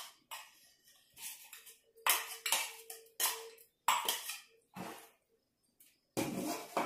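Metal spoon scraping and knocking against a clear plastic food-processor bowl and a glass mixing bowl as chopped onion mixture is spooned out: a string of sharp clinks and knocks, some with a brief ring, the loudest clatter near the end.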